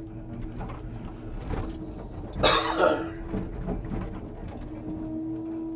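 Steady low drone of a Scania timber truck heard from inside the cab, with a short, loud burst of noise about two and a half seconds in.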